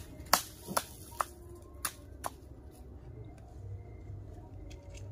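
Five short, sharp clicks or cracks, irregularly spaced, within the first two and a half seconds, the first the loudest.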